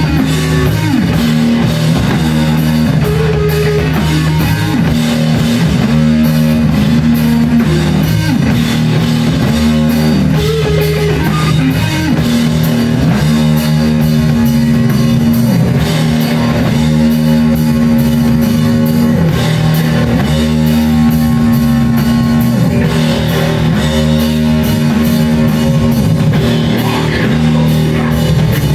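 Live heavy rock band playing loudly: distorted electric guitar and bass holding long low riff notes over a pounding drum kit.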